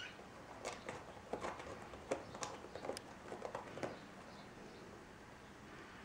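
Kittens scrabbling and moving about on bedding: a quick run of small scratches and rustles over the first four seconds, then quieter.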